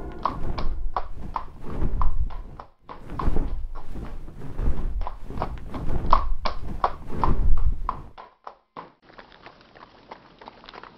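Horse hooves clip-clopping in an uneven, quick rhythm of knocks. Loud until about eight seconds in, then much fainter.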